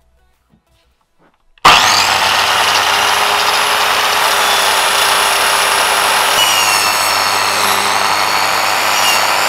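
Electric mitre saw switched on about a second and a half in, spinning up at once and running steadily as the blade cuts. Its whine dips a little in pitch in the second half as the blade takes load.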